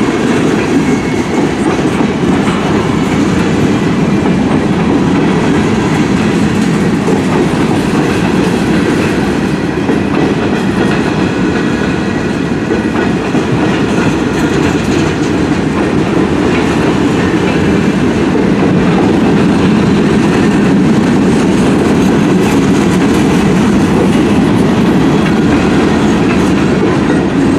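Cars of a long CN freight train rolling past, a steady, continuous rumble of steel wheels on rail.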